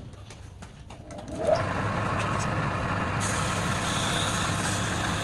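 A woodturning lathe's motor spins up with a short rising whine about a second and a half in, then runs steadily with a low hum. A few faint clicks come before it starts, and from about three seconds in a hiss joins the hum.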